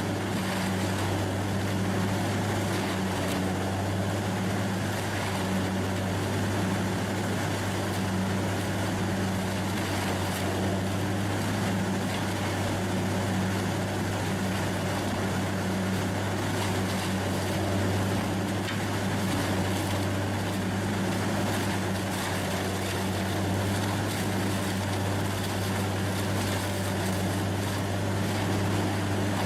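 Large wood chipper's engine running steadily: an even, low drone with no sharp cracks or bangs.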